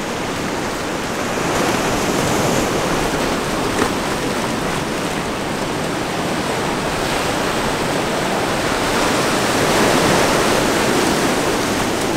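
Ocean surf washing over and breaking against coastal rocks: a steady rushing that swells as waves come in, about two seconds in and again near the end.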